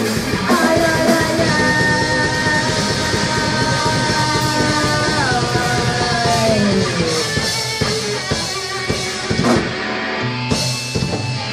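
Live rock band with electric guitars and a drum kit playing loudly, a held high note sliding down in pitch about halfway through, followed by scattered drum and cymbal hits as the song winds down.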